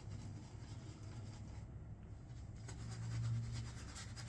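Faint bristly rubbing and scratching of a shaving brush working shave soap into lather and onto the face, over a steady low hum.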